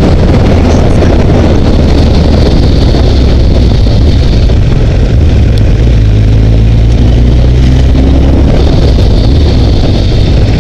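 Honda CBR900RR inline-four motorcycle engine running at low town speed, heard from a helmet camera with wind rumble on the microphone. Its note shifts around the middle as the bike slows and then picks up again.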